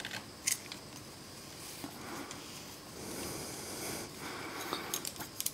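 Small metal clicks and faint scraping as a steel snap ring is levered into its groove with a small screwdriver on a Shimano Nexus 8-speed hub sprocket. One sharp click about half a second in, a few lighter clicks near the end.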